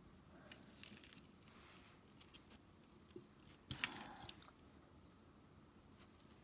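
Faint clicking and rustling of beaded necklaces and bracelets being handled and untangled by hand, beads knocking against each other, with one sharper click a little under four seconds in.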